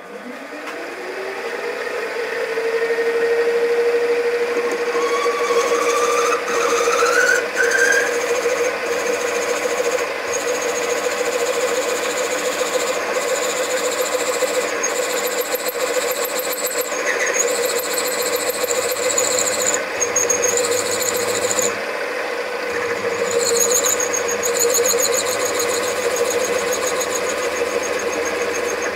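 A machine-tool spindle motor spins up, its hum rising to a steady pitch over the first couple of seconds. Then the bit cuts into a metal plate, with a steady high squeal that breaks off and comes back several times over the running motor.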